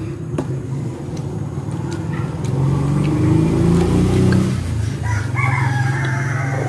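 A rooster crowing once, about five seconds in, over a steady low engine hum that grows louder in the middle.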